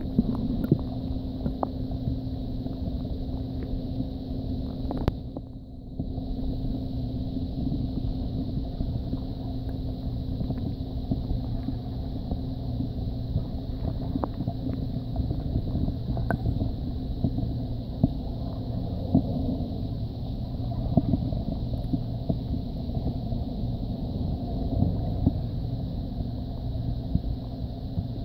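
Underwater river ambience: a steady low rumble and hum with scattered faint clicks and ticks. The sound drops away briefly about five seconds in.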